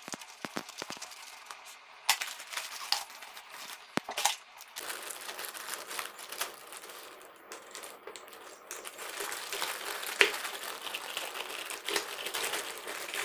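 Scissors snipping open a plastic courier mailer in separate sharp clicks, then, about five seconds in, a clear plastic bag crinkling steadily as it is handled, with small plastic bottle caps clicking inside it and onto a table.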